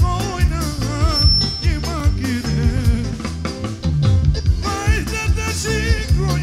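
Live band music through a PA: a man singing into a handheld microphone over an acoustic drum kit keeping a steady beat, with a wavering, ornamented melody line and a steady bass.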